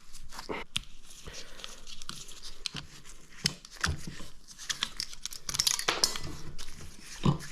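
Hands working on the old pool pump motor's wiring and parts, undoing a connection: scattered small clicks, scrapes and rustles.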